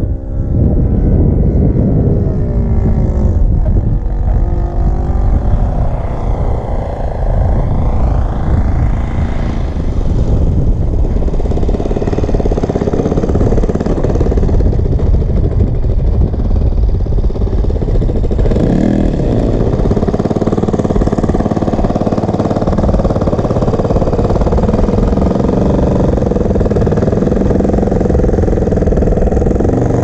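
Saito FG-40 40cc four-stroke gasoline engine of a large RC Spitfire model running, its pitch changing over the first ten seconds or so, then running steadily.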